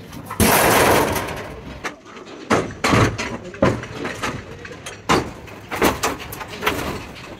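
A rusted steel sheet crashes and rattles down onto the truck bed's wooden floor about half a second in, followed by irregular metal bangs and knocks as more rusted steel panels are wrenched off the cargo body's wall.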